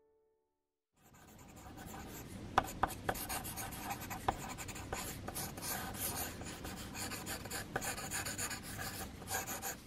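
Pencil scratching on paper in quick sketching strokes, with a few sharp ticks among them. It starts about a second in, after a brief silence.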